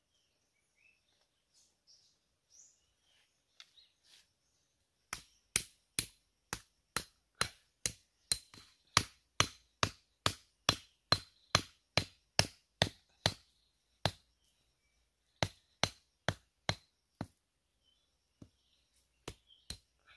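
A knife striking the top of a green wooden stake, hammering it into the ground: a steady run of sharp knocks at about two to three a second for some eight seconds, starting about five seconds in, then after a short pause five more, and a few lighter taps near the end.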